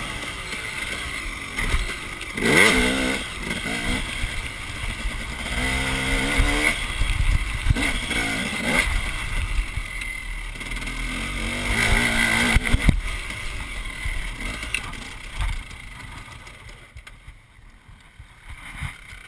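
Two-stroke dirt bike engine revving up and backing off again and again while being ridden, heard close up from a camera on the handlebars; after about two-thirds of the way through it drops back and goes much quieter as the bike slows.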